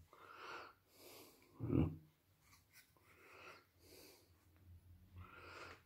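A person breathing heavily close to the microphone, with a string of noisy breaths about every half second to a second. One louder, deeper breath or handling bump comes just under two seconds in.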